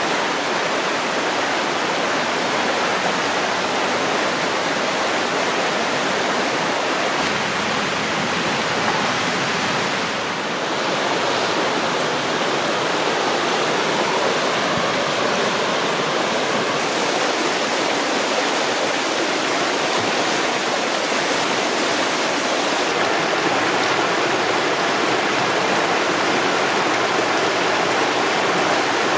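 Fast, high water of a rain-swollen, flooding creek rushing and churning steadily over rocks and around the bridge piers.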